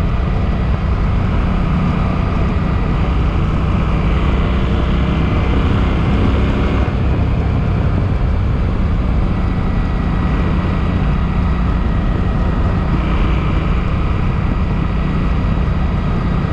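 Suzuki Boulevard M50's V-twin engine running steadily while the motorcycle is ridden along, its low drone unbroken and even in level.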